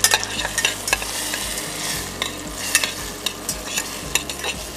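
Blanched green vegetables sizzling in butter in a small stainless steel saucepan, being glazed, while metal tongs stir them and click irregularly against the pan.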